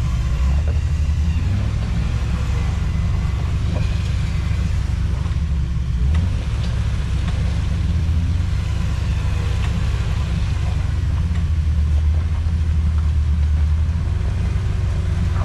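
Jeep engine running under load on an off-road climb, a low steady rumble whose pitch shifts a few times as the throttle is worked.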